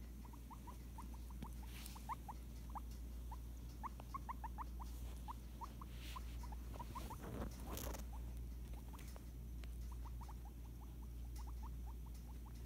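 Guinea pig making many short squeaks, each rising in pitch, several a second in irregular runs. A brief rustle of handling comes about halfway through.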